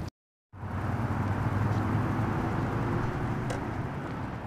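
Steady outdoor background rumble and hiss, cut off by a brief dead-silent gap about half a second in, then returning and fading away near the end.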